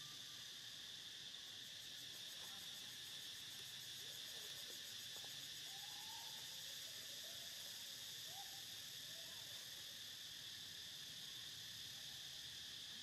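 Faint steady high-pitched drone of an insect chorus. A few faint short calls rise and fall through the middle.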